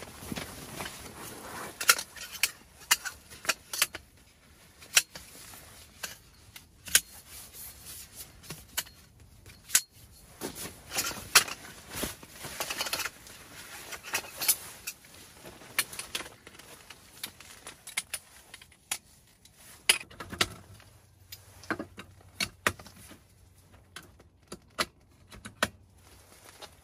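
Aluminium camp-cot poles and legs clinking and clacking as they are handled and fitted together: irregular sharp metal clicks, with fabric rustling in between.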